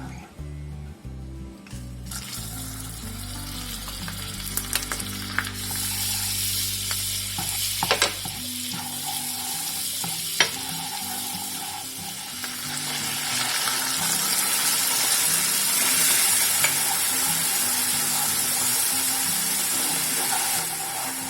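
Food frying in hot oil in a pan, a steady sizzle that starts about two seconds in and grows louder in the second half, with a few sharp knocks along the way.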